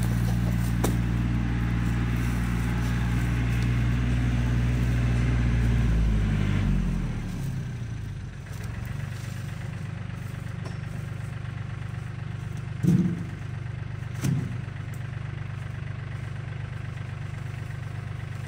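A farm machine's engine running steadily, then slowing and dropping to a lower, quieter idle about seven seconds in. Two short louder blips come later on.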